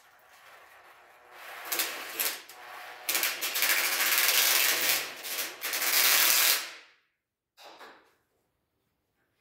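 Cordless drill-driver driving a screw into the corner joint of an MDF door frame, the motor and grinding screw getting louder partway through and stopping abruptly about seven seconds in. A short knock follows near the end as the tool is set down.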